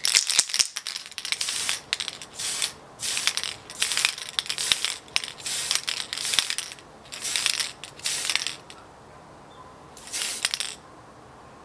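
Aerosol can of Mr. Color lacquer spray paint hissing in short bursts onto a small plastic model part, about a dozen quick sprays in a row, then one last burst after a short pause.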